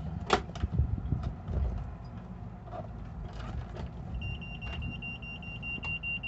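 A click near the start, then, about four seconds in, the engine instrument panel's alarm buzzer on a Westerbeke 12-D sailboat diesel starts a steady high-pitched beep as the panel is switched on, with the engine not running.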